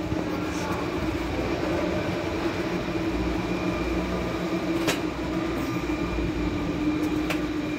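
A steady mechanical drone with a held hum and low rumble, broken by two sharp clicks, one about five seconds in and one near the end.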